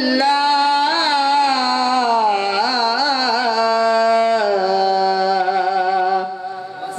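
A man's solo voice in melodic Islamic devotional chanting, sung into a microphone: long held notes with quick wavering ornaments about two to three seconds in, then a lower held note that fades near the end.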